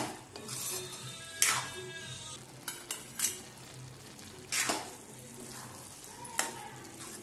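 Metal spoon stirring and scraping thick, moist grated-carrot halwa against the side of a kadhai, with about five louder scrapes or clinks spread through the stirring, over faint background music.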